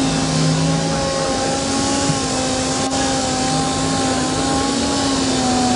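Air-powered dual-action (random orbital) sander running steadily on a paint panel, a constant whine over hissing air, while finish-sanding with a 3000-grit disc on a soft interface pad to cut out 1500-grit scratches.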